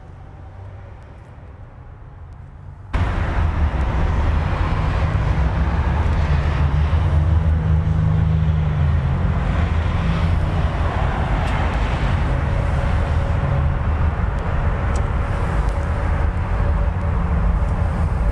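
Loud, steady vehicle drone with a heavy low rumble, starting abruptly about three seconds in after a quieter stretch.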